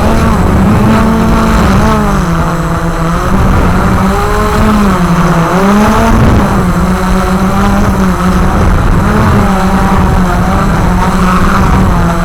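Walkera QR X350 Pro quadcopter's motors and propellers humming in flight, the pitch dipping and swinging back up about two seconds in and again around five to six seconds in as the throttle changes.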